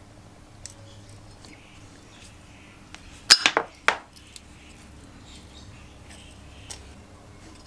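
Metal clinking as a screwdriver is worked against the engine's steel control-linkage bracket: a quick cluster of three or four sharp clinks about three seconds in, with faint small ticks of handling around it.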